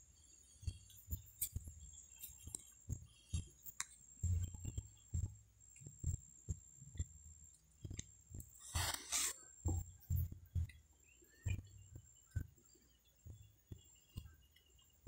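Handling noise: soft, irregular low thumps and rustles, with a louder rustle about nine seconds in, over a faint steady high-pitched tone.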